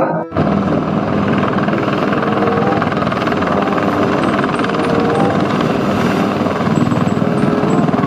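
AH-1Z Viper attack helicopter hovering low, its rotor chopping steadily over the engine noise. The sound cuts in abruptly just after the start.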